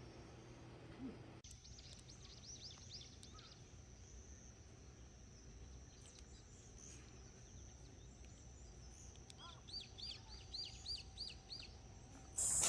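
A small bird calling: two runs of quick, high, falling notes, six or seven in each, over a faint steady background. A louder steady hiss begins right at the end.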